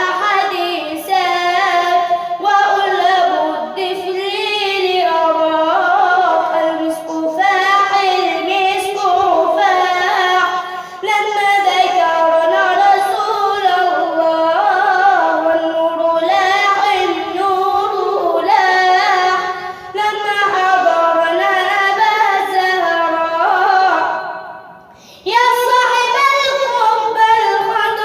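A high voice singing an Islamic religious nasheed unaccompanied, in long ornamented phrases that slide and turn in pitch, with a short pause for breath about 24 seconds in.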